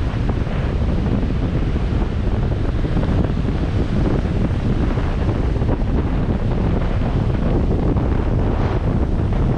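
Steady wind rumble on the microphone of a 4x4 driving along a sand beach, with surf breaking alongside.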